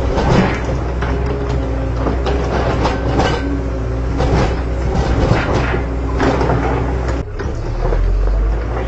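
Electric motors and gearboxes of a Huina RC excavator whirring steadily as the boom swings and the bucket digs, with gritty scraping from the soil. The sound breaks off briefly about seven seconds in and carries on.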